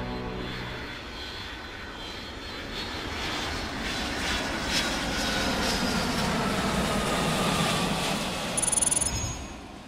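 Airbus A320neo jet airliner taking off at full thrust: a steady jet roar with a faint whine that slowly falls in pitch as the aircraft climbs away. Music fades out in the first second, and a short high-pitched tone sounds near the end before everything fades.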